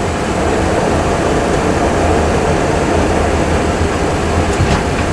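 Simulated Boeing 737 Classic jet engine and runway rumble from a full flight simulator's sound system during the landing rollout, a steady rumble as the aircraft brakes toward a stop.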